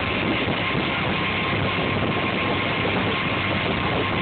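Motorboat engine running steadily at towing speed under a constant rush of wind and churning wake water.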